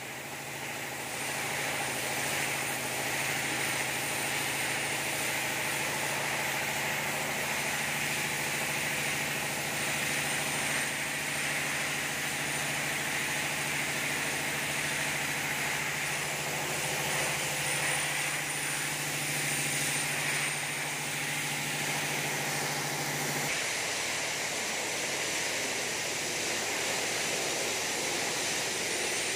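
Paint spray gun hissing steadily, with a steady low hum under it that stops about 23 seconds in while the hiss goes on.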